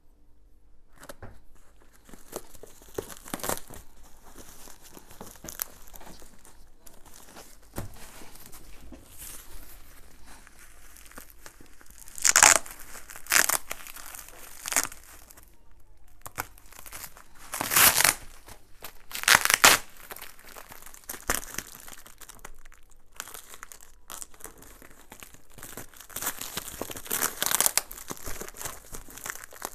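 Bubble wrap and plastic packing film on a courier parcel crinkling and being torn by hand, with a few short, loud rips about halfway through and a longer run of tearing near the end.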